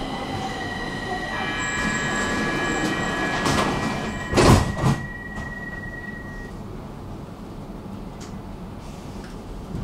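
Stockholm metro train running, heard from inside the car: a steady rumble with a high steady squeal from about one to six seconds in. There are a few loud knocks around four and a half seconds in, after which the ride goes on quieter.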